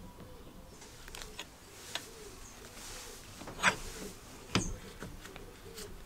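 Light metal clicks, then two sharp metallic clacks about a second apart, as the pivoted handle and blade of a benchtop metal shear are worked by hand after reassembly.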